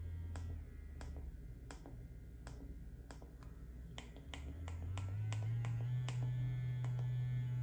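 Silicone vibrating facial cleansing brush's motor humming, its pitch stepping as the intensity is changed: lower within the first second, then climbing in steps to a higher hum from about four and a half seconds in. Light, sharp clicks, about three a second, run alongside.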